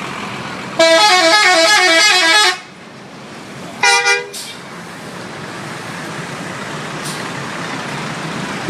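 Bus 'telolet' multi-tone musical horn playing a quick tune of alternating notes for about two seconds, then a short two-pulse horn toot about three seconds later, over steady road noise.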